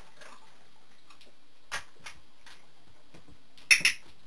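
Dog-training clicker: a faint click about halfway through, then a sharp double click near the end, the click that marks the dog's correct behaviour.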